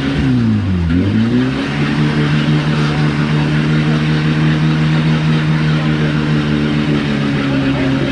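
Off-road vehicle engine revving hard, its revs dropping and climbing twice in the first second and a half, then held steady at high revs.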